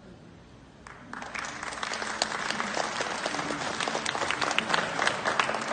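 Audience applauding: dense clapping breaks out about a second in and builds.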